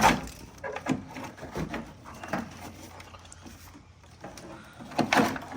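Knocks, clunks and rustling from old car wiring and interior parts being handled and worked loose, with a sharp knock right at the start and a cluster of knocks about five seconds in.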